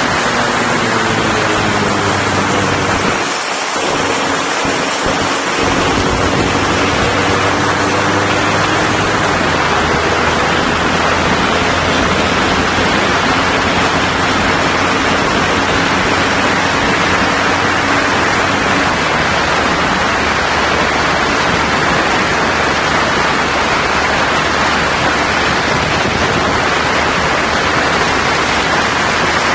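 Heavy wind rush and road noise on the microphone of a moving BMW adventure motorcycle. The engine's note sits faintly underneath, its pitch drifting slowly during the first half before it is lost in the wind.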